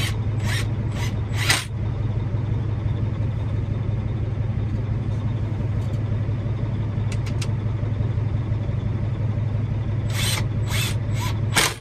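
Semi-truck's diesel engine idling steadily, heard from inside the cab. Short clattering noises come a few times about a second in and again near the end.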